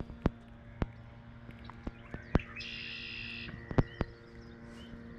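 A bird calls once for about a second near the middle, among several sharp clicks and taps, with a faint steady low hum underneath.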